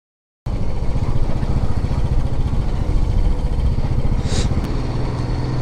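Motorcycle engine running steadily while riding, heard from the rider's seat with wind rushing on the microphone; it cuts in suddenly about half a second in, and a brief hiss passes about four seconds in.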